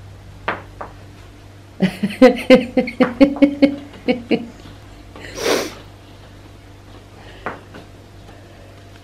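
A person's voice babbling a quick run of about eight short syllables, then a single breathy huff.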